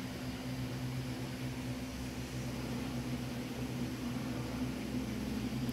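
Steady low machine hum with a faint hiss.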